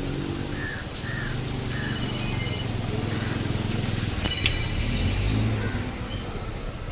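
A motor vehicle's engine running steadily with a low hum, with a click about four seconds in and a few faint short high tones.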